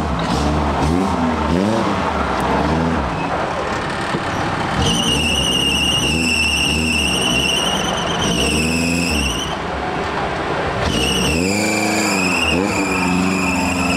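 Suzuki off-road 4x4's engine revving up and down repeatedly under load on a rocky climb. About five seconds in, a high tyre squeal from the wheels spinning on rock joins it, breaks off briefly, and comes back near the end.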